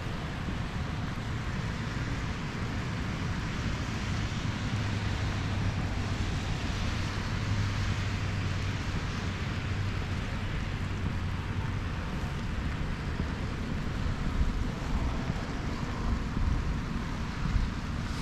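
Steady rain hiss, with a low engine hum from a vehicle in the middle and wind gusting on the microphone near the end.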